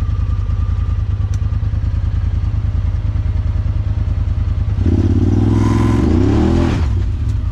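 Side-by-side UTV engine idling steadily, then revved up briefly about five seconds in, its pitch climbing and dropping back before it settles to idle again.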